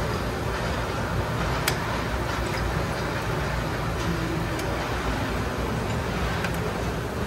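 Steady workshop background noise, a low rumble with hiss, with a sharp metallic click about two seconds in and a few fainter ones later, as locking pliers work a drum-brake shoe spring.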